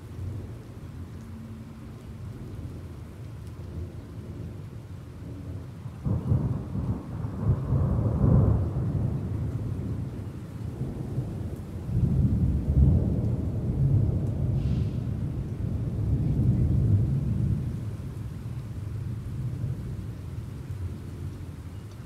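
Thunder in a thunderstorm over steady rain: a deep rolling rumble starts suddenly about six seconds in, swells twice, and dies away over the last few seconds.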